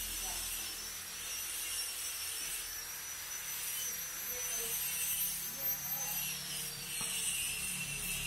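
High-pitched whine of a high-speed power-tool motor over a hiss, winding down in pitch about six seconds in.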